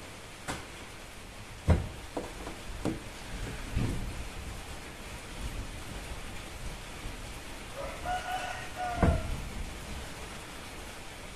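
Knocks and clicks from a car's front seat being handled and adjusted, about five in the first four seconds and a louder one near the end, over a steady hiss. A brief squeak comes just before the last knock.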